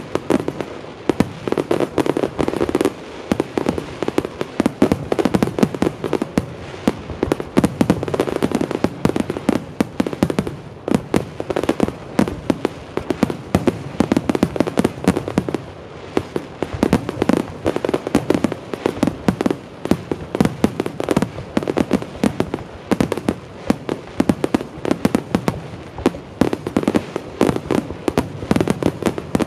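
Aerial firework shells bursting in a continuous finale barrage: dense, overlapping bangs and crackles following one another several times a second, without a break.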